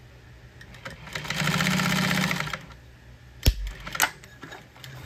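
Thor GC1541S industrial walking-foot sewing machine stitching vinyl and piping in a short, fast, even run of about a second and a half. About a second later come a sharp knock and then a click.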